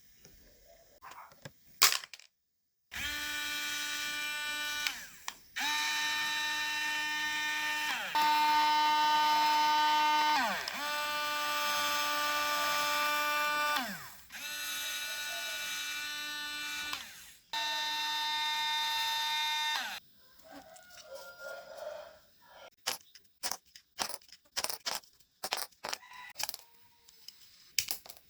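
Small electric fan motor whining at a steady pitch, switched on and off several times. Its pitch sinks twice as it winds down after power is cut. Then a run of sharp clicks and knocks.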